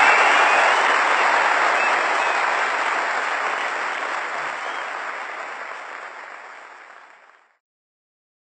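Large hall audience applauding, fading steadily away and stopping about seven and a half seconds in.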